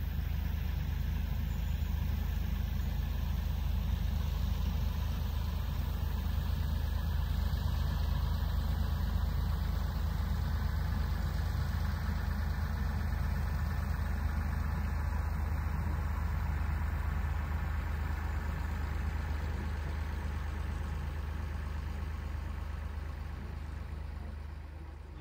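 Small narrow-gauge railway locomotive's engine running with a steady low hum as it hauls a carriage past, fading near the end as the train moves away.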